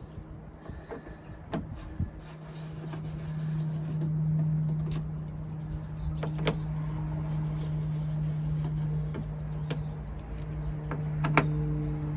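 Hand tools working on the inside of a car door, with a few sharp clicks and knocks, over a steady low hum that sets in about a second and a half in.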